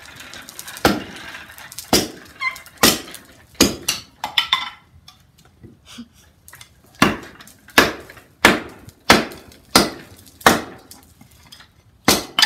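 An Estwing Sportsman camp axe with a stick of firewood on its bit, struck down again and again onto a log chopping block to split stove wood and kindling. It makes a series of sharp wooden knocks, about a dozen, at roughly one to one and a half a second, with a pause of about two seconds in the middle.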